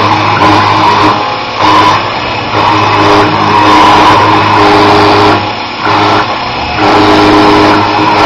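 Sherline 2000 CNC mill cutting with a 1/8" straight-flute end mill: the spindle runs and the cutter chatters through the stock while the stepper motors hum in steady tones that change as the axes switch moves. The sound drops briefly about a second and a half in and again around five and a half seconds in.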